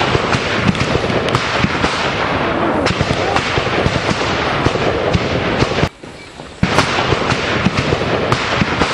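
Heavy gunfire, many sharp shots in quick succession and overlapping, with a brief lull of under a second about six seconds in.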